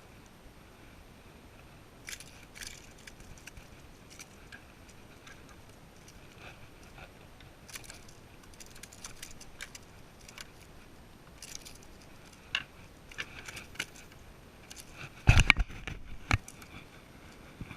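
Scattered light clicks and rattles of fishing gear being handled in a kayak, with a heavy knock against the hull near the end and a smaller one just after.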